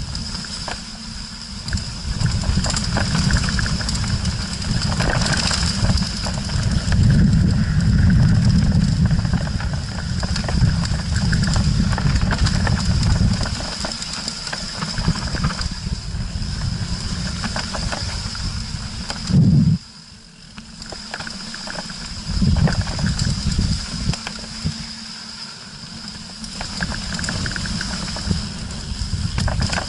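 Mountain bike riding fast down a dirt trail, heard from an action camera mounted on the rider or bike. Wind buffets the microphone, the tyres rumble over dirt and stones, and the bike rattles. A loud jolt comes a little past halfway, followed by a short quieter stretch.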